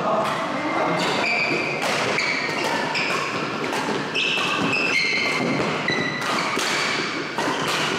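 Badminton rally: rackets hitting the shuttlecock in a string of short hits, with players' shoes squeaking briefly on the court floor between strokes.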